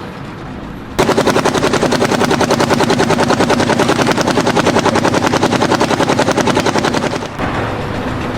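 A rapid, even train of sharp mechanical knocks, about seven or eight a second, starting suddenly about a second in and stopping suddenly near the end.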